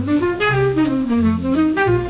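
Jazz background music with a saxophone-like horn playing the melody over a walking bass line and drums.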